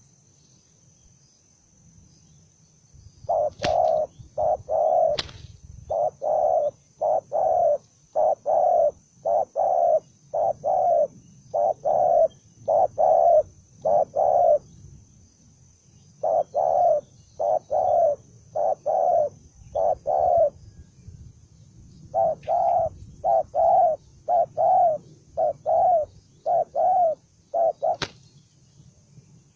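Spotted dove cooing in rapid runs of short, evenly pitched coos, about one and a half a second, broken by two brief pauses. A faint steady high insect-like tone runs underneath, and a few sharp clicks are heard.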